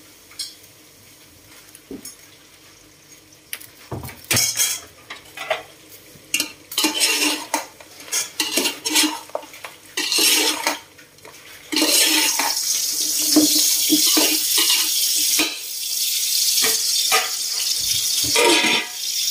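A metal spoon scraping and clanking against the side of a metal cooking pot as chicken pieces are stirred, in short separate strokes. From about twelve seconds in, a steady sizzle of the chicken frying in the pot, with the stirring scrapes going on over it.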